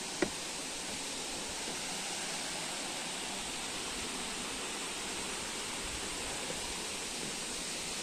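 Steady rushing of a stream and small waterfall over rocks, with a single sharp knock a quarter of a second in.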